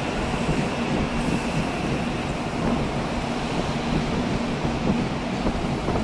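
Tokaido Shinkansen train running at the station platform: a steady, even noise with a faint hum, mixed with wind on the microphone.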